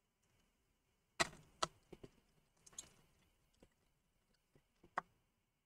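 A handful of short, sharp clicks and light taps, the loudest about a second in and another near the end, from a small precision Phillips screwdriver and its screws on a laptop's bottom cover.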